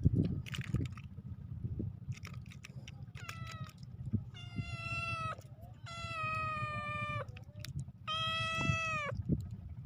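A cat meowing repeatedly: four long, steady meows of about a second each, starting about three seconds in, over a low rumble.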